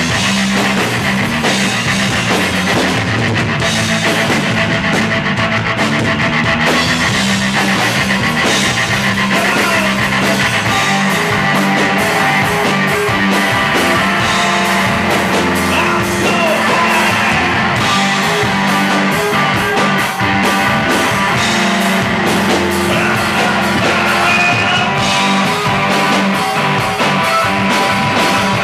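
A live rock band playing loudly and steadily, with electric guitar, electric bass and a drum kit.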